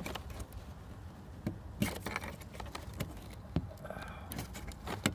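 Scattered sharp plastic clicks and knocks as the wiring connectors on a removed car door panel are worked loose by pressing in their locking tabs.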